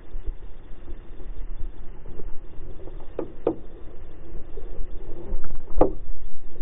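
Water and wind rumbling low against a small boat's hull, with two dull knocks a little after three seconds in and a louder knock near the end.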